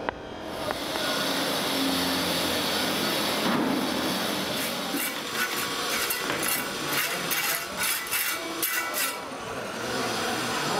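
Hand saw cutting wood on a building site: a steady rough scraping, then from about four seconds in a run of quick strokes, about three a second, for some four seconds.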